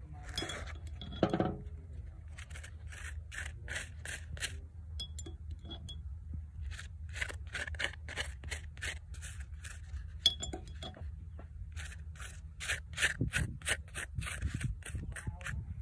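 Knife blade scraping and scoring the crisp, charred surface of a wheat roti in quick runs of strokes, about three or four a second, with short pauses between runs.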